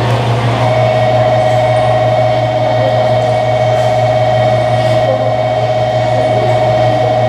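JR Kyushu 813 series electric train approaching slowly, with a low steady rumble and a steady high-pitched tone that sets in about half a second in.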